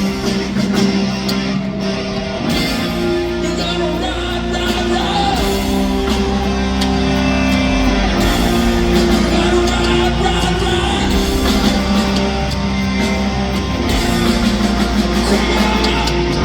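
Rock band playing live, electric guitar over bass, with a voice singing.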